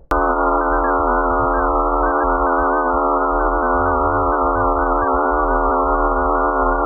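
A 'sound of the solar system' space recording: a dense drone of many steady, slightly wavering electronic-sounding tones layered into one chord over a low hum. It starts abruptly just after the beginning and holds level.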